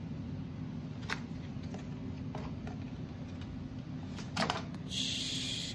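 A few light plastic clicks and knocks as a red cover is pulled off a turbocharger's compressor inlet, over a steady low hum. A short hiss comes near the end.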